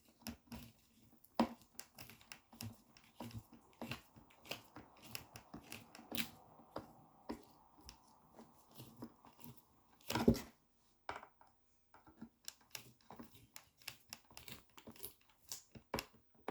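Scattered small clicks, taps and rustles of hands handling and fitting the plastic parts of a Samsung Jet 90 stick vacuum during reassembly, with one louder knock about ten seconds in.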